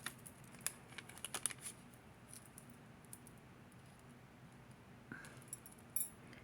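Faint clicks and taps of metal jewelry being handled: a quick cluster in the first second and a half, then a few more near the end.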